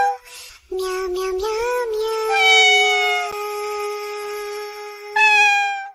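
Synthetic, meow-like singing: long held notes with a short break near the start and a new, higher note coming in near the end.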